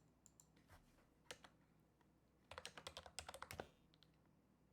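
Faint typing on a computer keyboard: a few single keystrokes, then a quick run of keystrokes about halfway through as a name is typed in.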